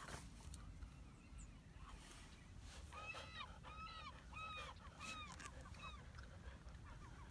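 Faint series of goose honks from a flock of waterfowl on the bay: about ten short calls, two or three a second, starting about three seconds in and dying out about a second before the end.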